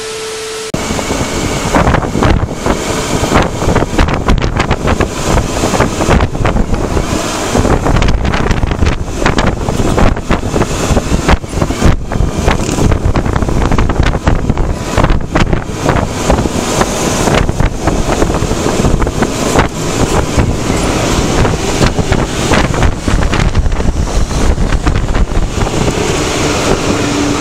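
Wind buffeting the microphone of a camera on a moving motorcycle, a loud, irregular rush mixed with road and traffic noise. It opens with a brief steady tone under a TV-static transition.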